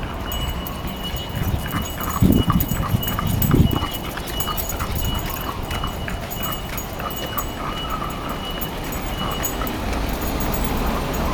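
French bulldog walking on a leash over tiled pavement: small rapid clicks of its claws on the tiles, with its noisy breathing, louder twice between about two and four seconds in.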